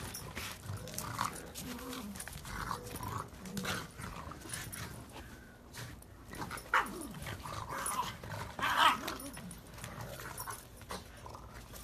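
A pug making short vocal sounds about once a second while it pushes and bites a plastic ball, with a couple of louder, sharper sounds in the second half.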